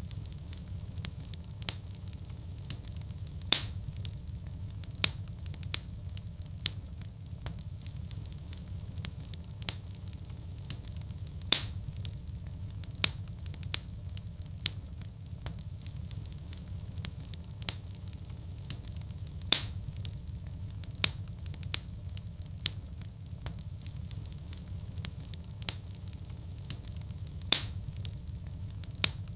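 Wood fire burning in a fireplace: a steady low rumble of flames with frequent small crackles and a louder pop about every eight seconds.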